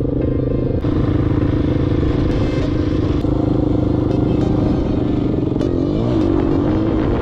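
Off-road motorcycle engine running at steady revs, with the pitch wavering down and back up near the end as the throttle changes.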